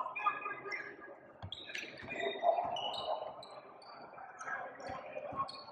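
Basketball game sounds: sneakers squeaking in short high chirps on a hardwood gym floor, and a basketball bouncing with a few dull thuds.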